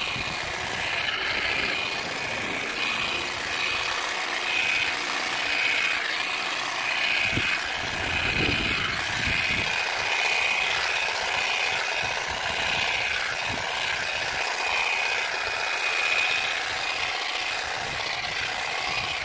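Parkside PGSA 4 A1 4-volt cordless grass shear running with its grass-cutting blade, trimming through grass: a steady high-pitched motor whine with the rattle of the reciprocating blade.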